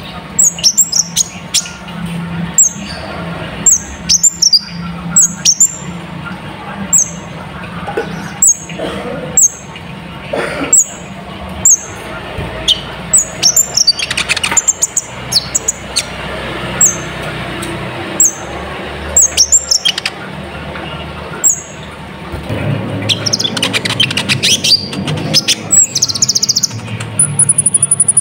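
Ruby-cheeked sunbird (kolibri ninja) singing: a long run of separate, short, high chirps that each drop in pitch, with a denser buzzy phrase near the end and an even, very high trill at the close. A faint low hum runs underneath.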